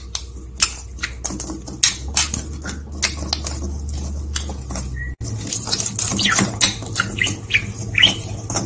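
Budgerigar chattering: a busy run of sharp clicks mixed with short high chirps, the chirps coming thicker in the second half.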